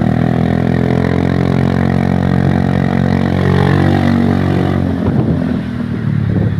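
Bus "telolet" horn sounding a sustained chord of several steady tones, starting suddenly and cutting off about five seconds in, after which engine and road noise carry on.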